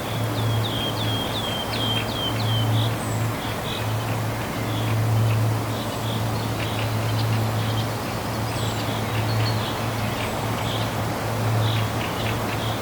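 Waterfall rushing steadily with a deep low rumble beneath it. A bird sings a quick run of about eight falling chirps in the first three seconds, then chirps now and then.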